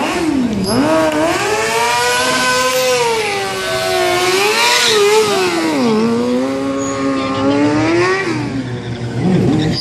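Sportbike engine revving hard, its pitch climbing and dropping again and again as the throttle is worked during stunt riding.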